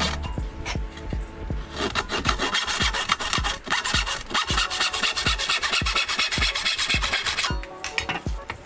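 Hand backsaw cutting into a wooden board in quick, even push-and-pull strokes, each stroke a dry rasp of the teeth through the wood.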